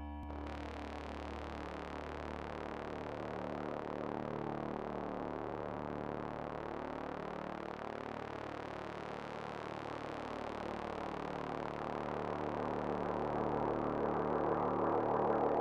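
Dark droning soundtrack: a low steady hum under a dense, shimmering texture that swells louder near the end.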